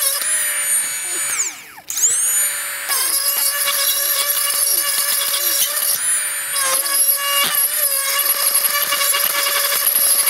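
Cordless electric die grinder with a burr grinding out an oil passage in a Toyota 1G-FE cast-iron engine block, enlarging it for better oil flow. A high whine whose pitch wavers under load; about two seconds in the motor winds down and stops briefly, then spins back up and grinds on.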